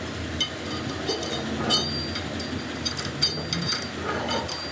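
Sharp metallic clinks from a steel chuck key and hand tools knocking against a lathe's three-jaw chuck as the key is fitted and turned, a handful of ringing taps with the loudest about three seconds in.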